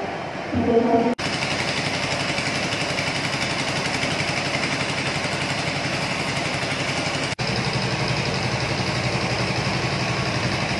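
Small engine of a cart-mounted pressure washer running steadily with a fast, even pulse. It cuts in about a second in, after a moment of platform noise with a voice.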